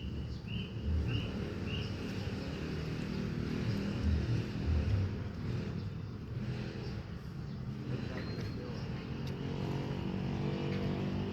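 An engine running steadily with a low hum, evening out in the last few seconds. Short high chirping calls repeat about twice a second near the start.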